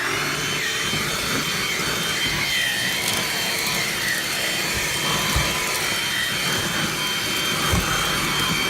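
Bissell AutoMate cordless lithium-ion car vacuum running at full speed with a steady high whine while its brush attachment works over the car floor. Two short low knocks come through about halfway in and near the end.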